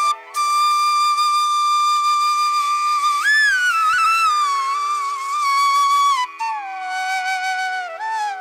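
Background music: a flute holding long notes and sliding between them, with a bend about three seconds in and a falling slide near the end, over a steady low drone.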